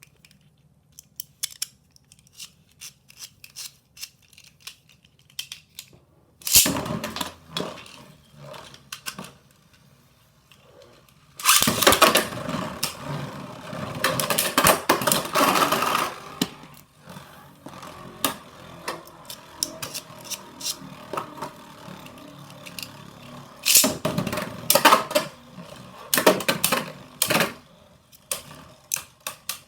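Beyblade spinning tops launched into a plastic stadium, scraping and clattering as they spin and collide. Scattered small clicks lead up to the first loud launch about six seconds in. The loudest stretch of scraping and clashing comes near the middle, with more loud hits near the end.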